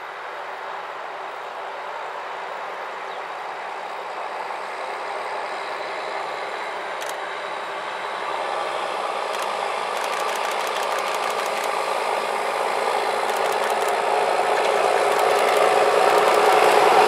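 Diesel locomotive hauling a train of vintage passenger coaches approaching, its engine growing steadily louder as it nears.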